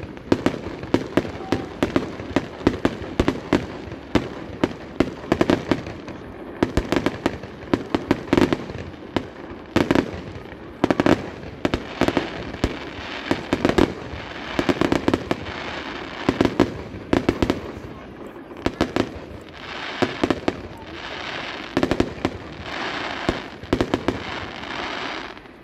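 Fireworks display: aerial shells bursting in quick succession, about two to three bangs a second. Through the second half a dense crackle of crackling stars fills in between the bangs.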